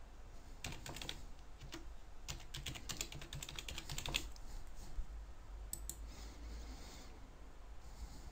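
Computer keyboard being typed on, a quick run of faint keystrokes for about the first four seconds, then a few scattered single clicks.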